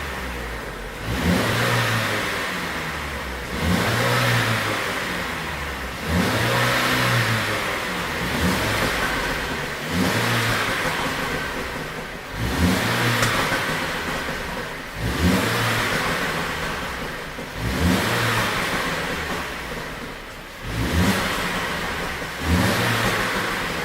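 2017 Mercedes-Benz E300's turbocharged four-cylinder engine being blipped repeatedly, each rev rising sharply and then falling back, roughly every two to three seconds. The engine carries a tune meant to make exhaust pops on the overrun.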